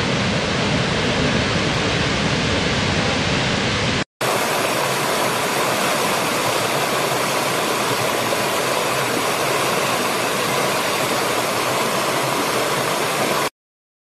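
Steady rushing of a large waterfall that cuts off about four seconds in. After a brief gap, water rushes over rocks in a small stream, then stops suddenly shortly before the end.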